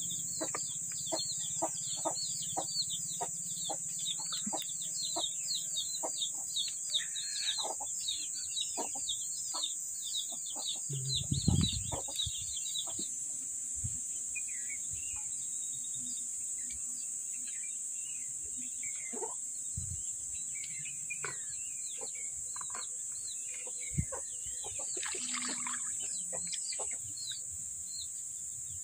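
Chickens clucking in a yard, with small birds chirping rapidly through the first half, over a steady high hiss. Scattered clicks and taps run through it, with one louder thump about eleven seconds in.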